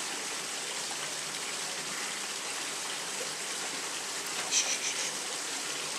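Steady hiss with the even sound of running water or rain, and a few short clicks or rustles about four and a half seconds in.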